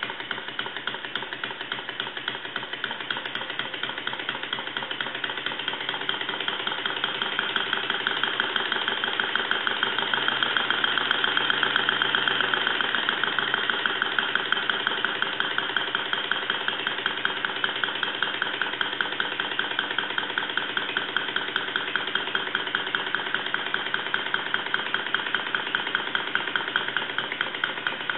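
Stuart 7A model vertical steam engine running steadily, a fast even beat of several strokes a second, growing a little louder towards the middle and then easing.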